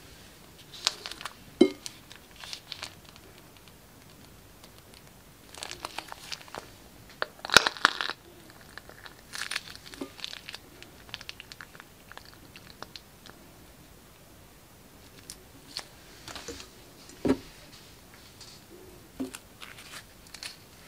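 Plastic piping bag crinkling as a hand squeezes glossy slime out of it, coming in uneven spells of crackling, loudest about a third of the way through.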